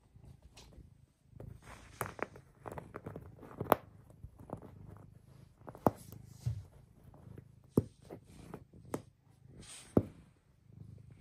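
Irregular clicks, taps and rustles close to the microphone, a few of them sharp and loud, over a faint low rumble: handling and rubbing noise.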